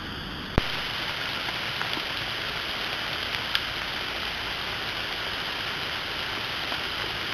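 Steady outdoor hiss picked up by a trail camera's microphone at night, with a sharp click about half a second in as the recording cuts to a new clip, and a faint tick a few seconds later.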